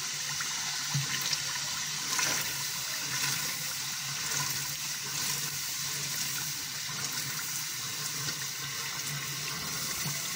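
Hot masala sizzling and bubbling in a large aluminium cooking pot while soaked chickpeas are poured in from a steel colander, a steady, watery rushing sound.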